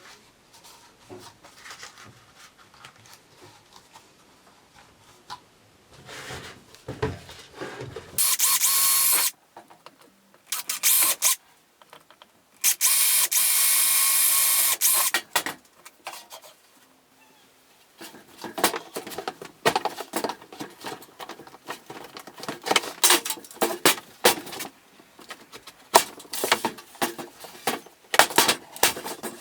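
Homemade 12 V vacuum cleaner, driven by a cordless-screwdriver motor, switched on in short runs: about a second, a couple of brief blips, then about three seconds of steady motor whine and rushing air. Handling clicks come before, and irregular clicking and rattling follows.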